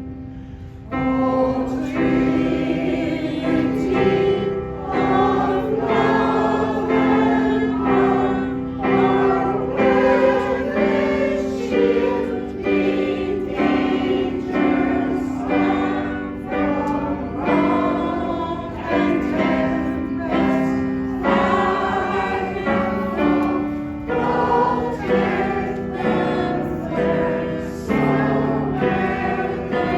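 Community choir singing a song together, holding long notes that step from one pitch to the next; the singing starts about a second in.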